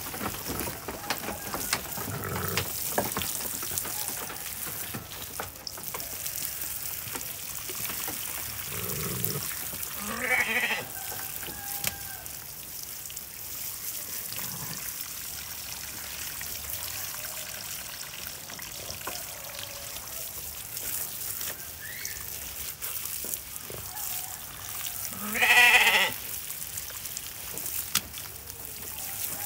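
A sheep bleating twice, a short call about ten seconds in and a longer, louder one near the end, over the steady hiss of a garden hose spraying water onto its wool.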